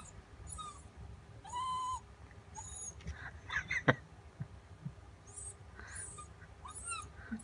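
Mini dachshund puppy whining and whimpering in short high-pitched calls, one held whine about a second and a half in, with short very high chirps between them.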